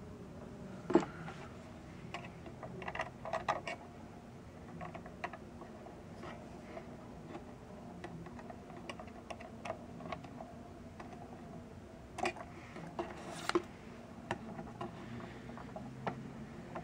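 Light, scattered clicks and taps of hard plastic knobs and a small screwdriver being handled and fitted onto a synthesizer's knob shafts. There is one sharp click about a second in, and small clusters of clicks a few seconds in and again near the end.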